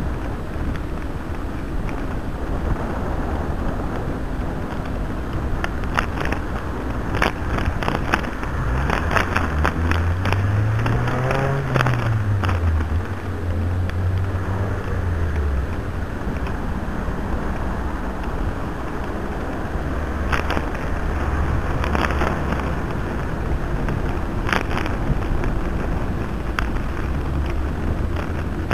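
Steady wind and road noise from a bicycle-mounted camera on the move, with scattered short knocks and rattles. About a third of the way in, a motor vehicle's engine is heard, its pitch rising and then falling.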